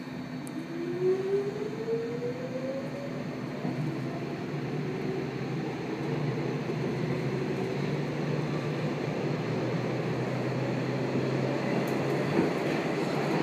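Stockholm metro C14 subway car heard from inside as it pulls out of a station: a whine rises in pitch over the first few seconds as the train accelerates, then rolling wheel and running noise builds steadily as it gathers speed.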